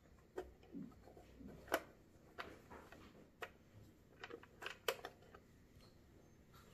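Small screwdriver turning a screw in a plastic toy's back panel: irregular light clicks and ticks of the metal tip and the hard plastic being handled.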